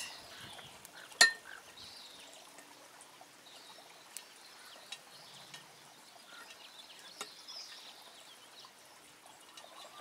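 Light handling noise as the thin power cord of a small solar fountain pump is coiled by hand: a sharp click about a second in, then a few faint ticks over a quiet background.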